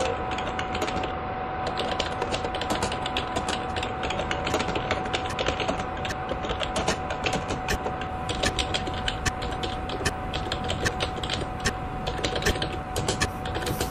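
Machinery sound effect: many fast, irregular mechanical clicks and clatters over a steady hum, with a constant held tone underneath. The clicks grow denser in the second half.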